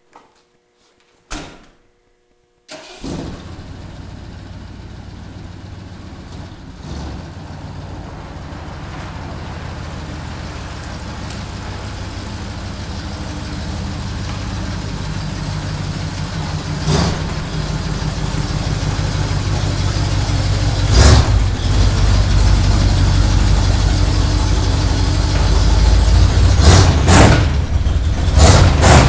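Modified Ford 400 V8 engine in a Ford Bronco starting about three seconds in and running steadily, growing slowly louder, with a few brief louder bursts. The engine needs fixing and is about to be torn down.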